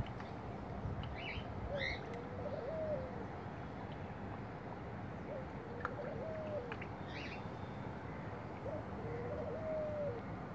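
A dove coos three times, a few seconds apart, each a short low phrase, over a steady background hiss. Small birds chirp faintly a few times.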